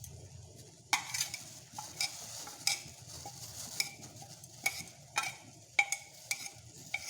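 Metal spoon stirring in a saucepan of boiling spiced water, clinking sharply against the pan about a dozen times at an irregular pace, starting about a second in, over a steady low hum.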